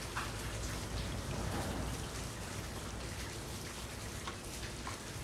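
Steady rain falling on the ground and surroundings, an even hiss with separate drops striking close by now and then.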